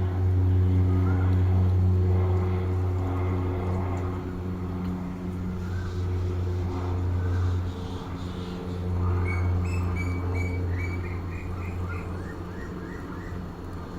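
Birds chirping and calling, with a quick run of short repeated notes about two-thirds of the way through, over the loud, steady low drone of an engine that dips briefly around the middle.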